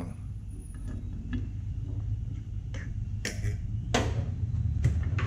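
Sharp clicks and knocks of steel tongs and a steel casting flask against a burnout furnace's hearth, then the furnace door being shut, about eight in all with the strongest near the end. A steady low hum runs underneath.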